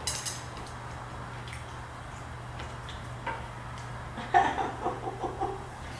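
Chopsticks clinking against a hot pot: a few faint knocks, then a short run of light clinks and clatter about four seconds in, over a low steady hum.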